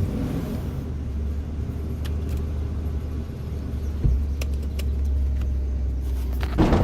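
Ram 2500's Gen 3 Hemi V8 running steadily with a low rumble, with a few light clicks; near the end the sound grows louder and fuller.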